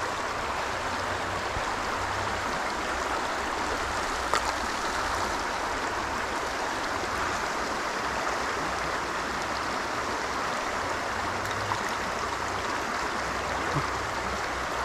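Steady rush of shallow river water flowing past, with a few brief sharp clicks, the loudest about four seconds in.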